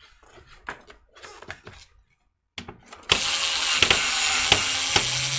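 Light clicks of small parts being handled, then about three seconds in a loud whirring with regular sharp clicks: a screwdriver mechanism working a screw in the PC case.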